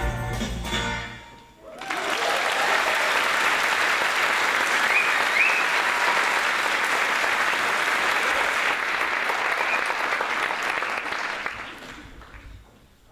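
A choir's final chord ends, and after a brief pause an audience applauds for about ten seconds, dying away near the end.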